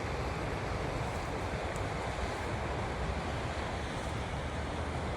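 Wind rushing over the microphone: a steady hiss with an uneven low rumble.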